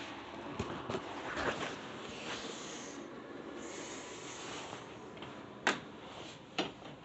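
Handling noise from a phone being moved and covered: rustling with several sharp knocks, the loudest near the end.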